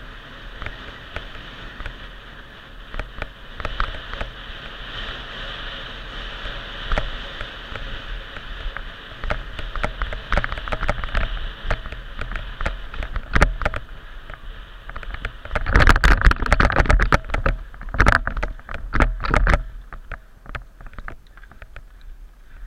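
Mountain bike riding fast over a rough grass trail: a steady rush of air and tyre noise with scattered clicks and knocks as the bike rattles over bumps. About three-quarters of the way through comes a burst of heavy rattling and thumps over rougher ground, which then eases off.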